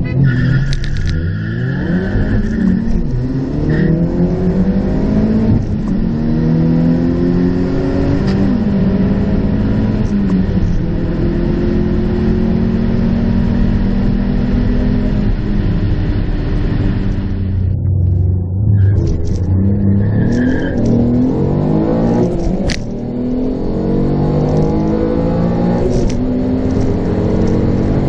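Car engine heard from inside the cabin, accelerating hard through the gears in a drag run: the revs climb in each gear and drop at each upshift. About two-thirds of the way through there is a break, and a second full-throttle run picks up with the same rising and falling revs.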